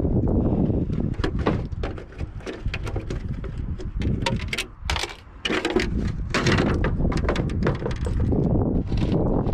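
Handling noise close to the microphone: a run of irregular sharp clicks and knocks over a low rumble, with a brief dip in the middle.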